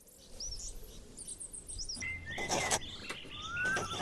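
Birds chirping: quick high chirps and trills, then rising whistled calls, with a brief rustling burst about two and a half seconds in.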